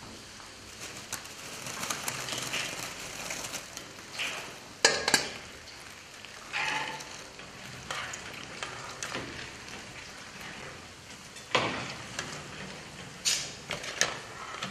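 Kitchen work with steel pots and wire-mesh strainers: a steady hiss with metal clinks and clatters a few times, the loudest about five seconds in. Fried kadayıf dolması pieces are being handled and dipped in syrup.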